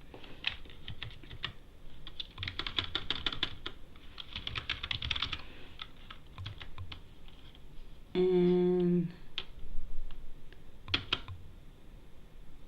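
Typing on a computer keyboard in bursts of quick key clicks. About two-thirds of the way through, a steady hum-like tone lasts about a second and is the loudest sound.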